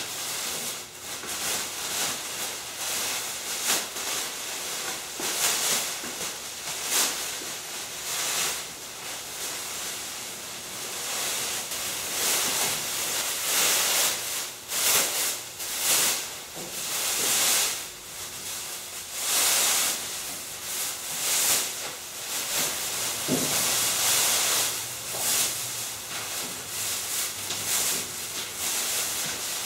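Masking tape being pulled off the roll and plastic sheeting rustling, in repeated hissy bursts of about a second each, while a car is wrapped for painting.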